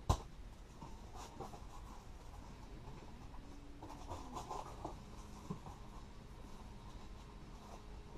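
A cardboard shipping box being handled and opened: a sharp knock as it is set down, then scraping and rustling of cardboard and packing material with scattered small clicks.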